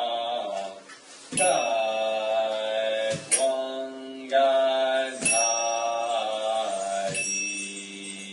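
Devotional charya song sung in a slow chant, accompanied by small hand cymbals struck about every two seconds, each strike ringing on. The singing softens near the end.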